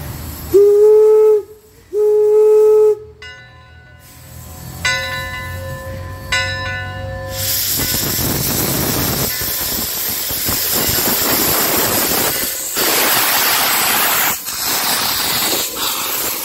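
Steam locomotive whistle sounding two short blasts, the railroad signal to proceed, followed by a fainter chime whistle. Then a loud, steady hiss of steam sets in about halfway through.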